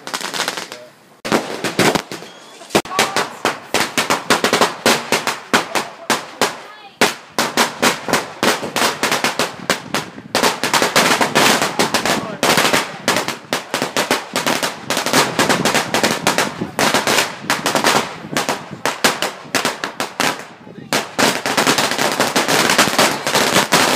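Fireworks going off in a rapid, continuous barrage of sharp bangs and crackles, with short lulls about a second in, near seven seconds and around twenty-one seconds.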